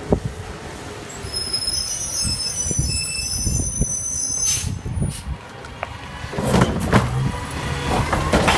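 Automated recycling garbage truck working close by: a high, thin squeal for a few seconds, then metallic clanks and a burst of heavy clattering and thuds about two-thirds of the way through.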